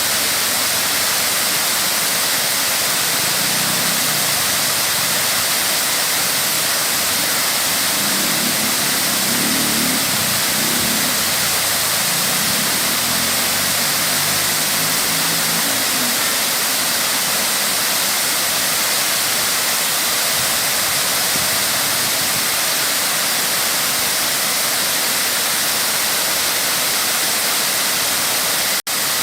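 Waterfall rushing steadily, a loud, even roar of falling water. A fainter low sound rises and falls beneath it for a while in the middle, and the sound cuts out for an instant near the end.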